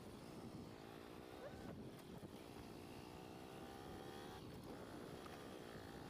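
Motorcycle engine running while riding along a rough dirt track, its pitch rising and falling a little with the throttle.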